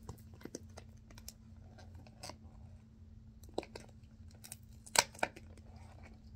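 Small cardboard box of a travel plug adapter being opened by hand: a scatter of sharp clicks and scrapes as the flaps and packaging are worked, the loudest pair about five seconds in.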